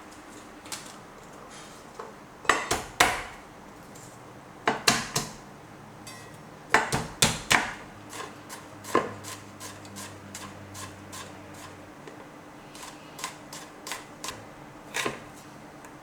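Knife chopping food on a cutting board in short bursts of sharp knocks, with lighter, sparser taps in the second half.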